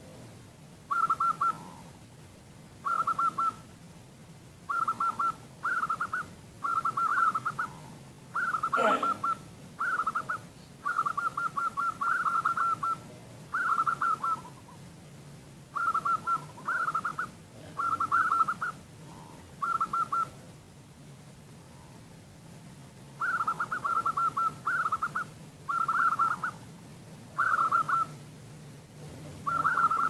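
Female zebra dove (perkutut betina) calling: short, rapid trilled bursts repeated every one to two seconds, with a pause of a few seconds about two-thirds of the way through. This is the call used as a lure to set other zebra doves singing.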